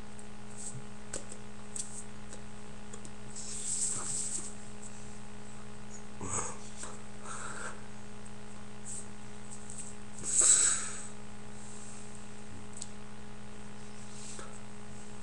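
Steady low electrical hum, with a few short breathy, hissy sounds over it; the loudest comes about ten and a half seconds in.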